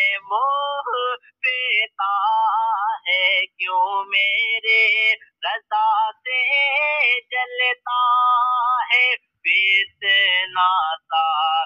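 Wordless sung interlude of an a-cappella devotional naat: an electronically processed voice singing short melodic phrases, bending in pitch, with brief gaps between them and no bass or percussion underneath.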